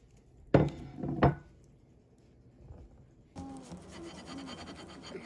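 Two loud, sudden scraping knocks a little over half a second apart, then softer rubbing and scraping as a thin wooden pick cuts through a cream-filled donut on a plate.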